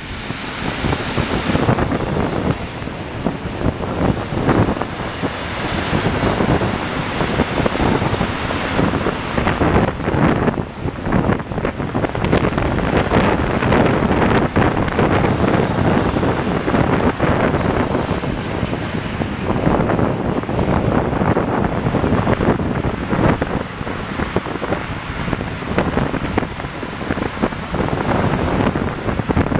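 A long freight train of stone-laden hopper wagons rolling past close by, a continuous heavy rumble and clatter of steel wheels on the rails, with strong wind buffeting the microphone. The train's diesel locomotive is moving away at the very start.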